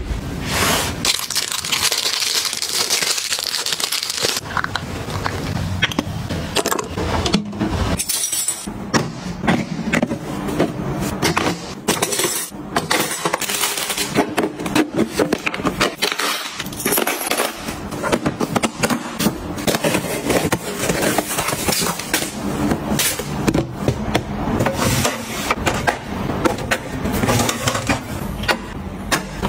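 Household items being handled and put away: a long run of clicks, clinks and knocks, with a hiss for a few seconds near the start.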